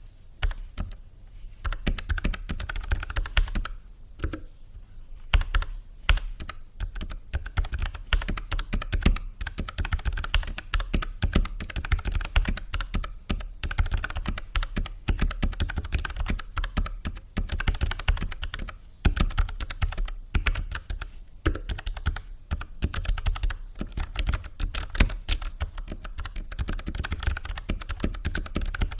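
Continuous fast typing on a Logicool MX Mechanical Mini keyboard with clicky Kailh Low-Profile Blue switches: rapid keystroke clicks, with brief pauses about four seconds in and again near the end of the third quarter.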